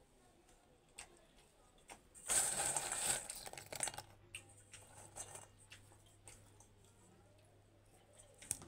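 Crisp fried namkeen pare rustling and clinking against a steel bowl as they are stirred and picked up by hand: scattered light clicks, with a loud rattling stretch of about a second and a half a little after two seconds in. A faint low hum sets in about four seconds in.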